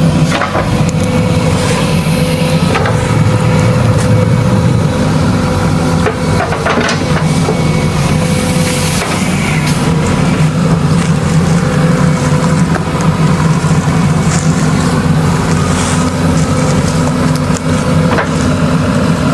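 Heavy construction machine's diesel engine running steadily under work, with occasional knocks and clanks.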